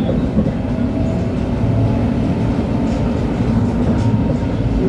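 LHB TW2000 light-rail car running along the track: a steady low rumble of wheels and running gear, with faint steady tones above it.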